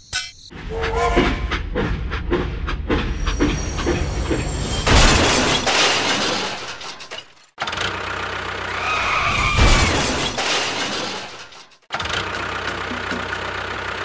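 Train and crash sound effects: a train running on rails, with crashing and breaking noises. The sound cuts off sharply twice.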